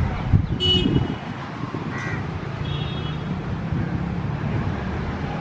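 Steady low rumble of an approaching WAP-7 electric locomotive and its express train, louder for a moment about half a second in, with a crow cawing about two seconds in and other brief bird calls.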